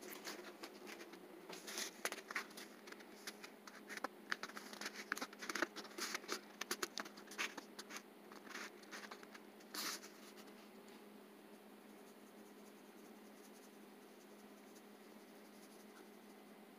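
Faint irregular scratching and clicking for about the first ten seconds, then only a faint steady hum.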